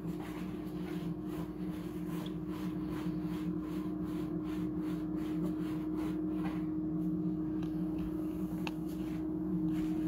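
Air fryer running while it cooks, its fan giving a steady hum, with a few faint clicks over it.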